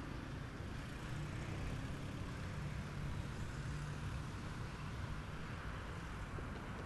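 Cars driving past on the road alongside, a steady traffic noise with a low engine hum.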